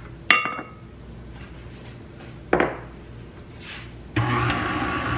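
A small glass bowl clinks against a glass stand-mixer bowl with a short ringing ping, and a dull knock follows a couple of seconds later. About four seconds in, the stand mixer's motor starts and runs steadily for about a second and a half, beating the egg and vanilla into the creamed butter and sugar, then stops.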